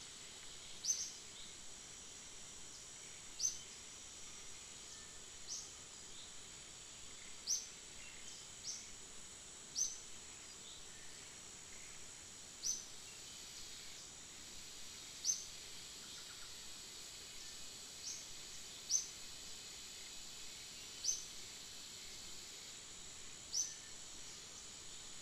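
Outdoor wildlife ambience. A steady, high insect drone runs throughout, and a short chirp that rises in pitch repeats about every two seconds, a dozen times over.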